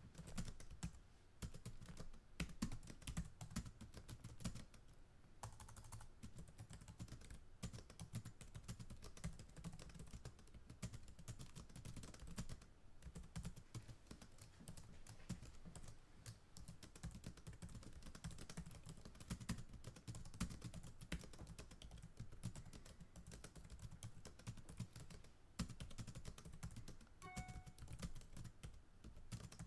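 Computer keyboard typing: a steady, irregular patter of key clicks that starts abruptly and continues throughout. A brief faint tone sounds near the end.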